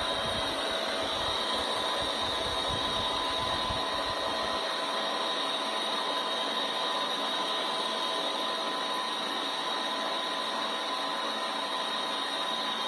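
Helicopter running overhead: a steady turbine whine over rotor noise. The low rumble drops away about four and a half seconds in.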